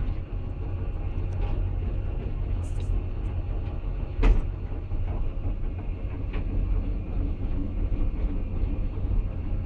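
Caterpillar 329 hydraulic excavator heard from inside the cab: the diesel engine drones steadily and deep, with scattered clicks and knocks and one sharp knock a little over four seconds in.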